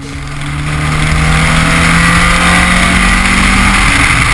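Honda Civic Si (EM1) running at road speed, its engine a steady low note under loud tyre and wind noise picked up by a camera mounted beside the front wheel. The sound swells over the first second, then holds.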